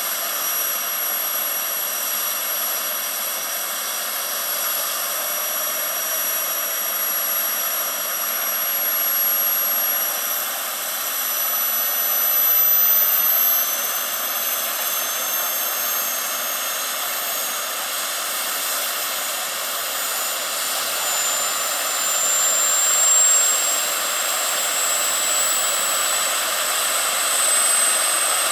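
The GP70 gas turbine of a 1/6-scale coaxial K-Max model helicopter, running on the ground as its rotors spin up: a steady rushing hiss with a high whine that slowly rises in pitch.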